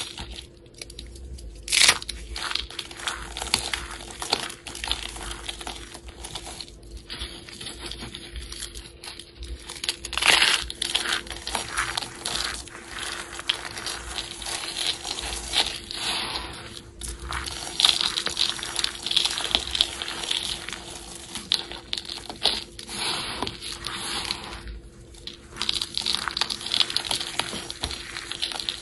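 Dry shaved soap flakes crunching and crackling as hands squeeze and crumble them: a dense run of small crisp crackles with a few louder crunches.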